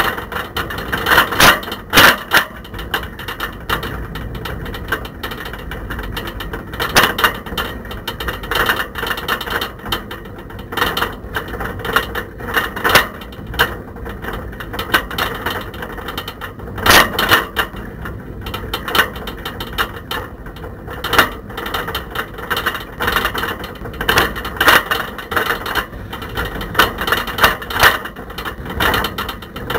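A camera rattling in a bicycle's front basket as the bike is ridden, really rattly and noisy. Irregular clatters and knocks come every second or so, some much louder than the rest, over a steady road noise.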